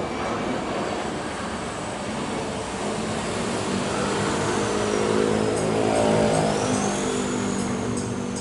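Airliner jet engines at takeoff power as the plane passes, a steady roar that swells to its loudest about six seconds in, with a high engine whine that shifts in pitch.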